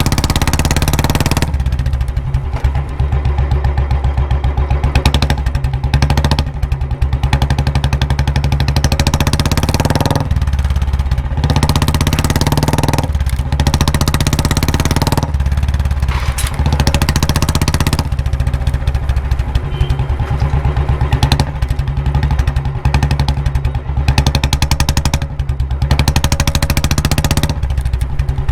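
Royal Enfield Bullet single-cylinder motorcycle engine with a 'mini Punjab' aftermarket silencer, running with a steady thumping exhaust beat. The throttle is blipped briefly several times, each blip a louder, harsher burst.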